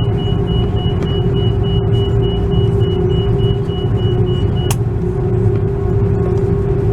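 Airbus A330-300 jet engines and runway rumble heard inside the cabin on the takeoff roll: a loud, steady deep rumble under a steady engine hum. A faint high whine cuts off with a click nearly five seconds in.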